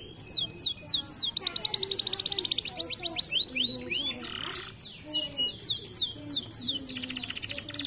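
Domestic canary singing a long, high song: fast rolling trills alternating with runs of repeated falling whistled notes. A trill starts the song, another rises near the end, and a sharp loud note comes a little past halfway.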